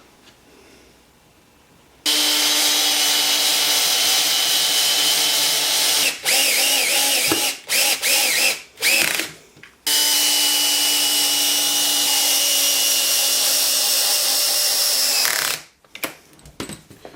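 Power drill driving screws into a maple block: the motor runs steadily, then stutters in several short stop-start bursts with its pitch dipping and wavering, then runs steadily again for about five seconds before stopping.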